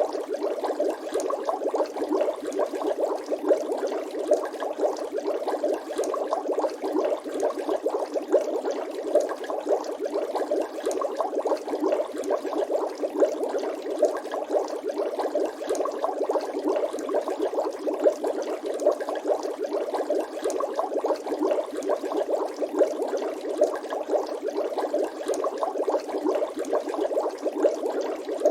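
Continuous water bubbling: a dense, steady stream of small bubble pops with no pause.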